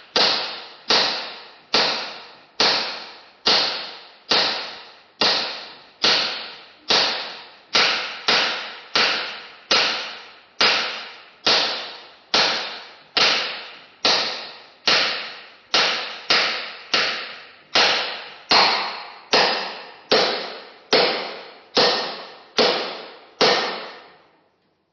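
Hammer blows struck at a steady pace, a little over one a second, each ringing briefly and dying away before the next. They stop just before the end.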